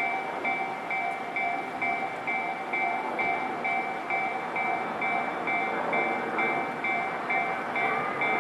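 Japanese railway level-crossing warning bell ringing, an electronic two-tone clang repeating about twice a second, over steady background noise.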